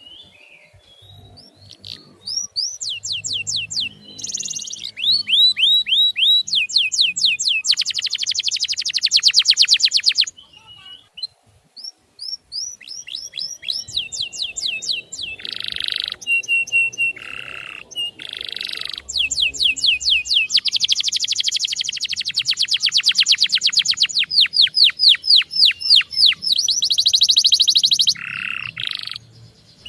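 Male canary singing a long song of fast trilled tours: runs of rapidly repeated high, down-sliding notes alternating with buzzy rolls, with a brief pause a little before halfway.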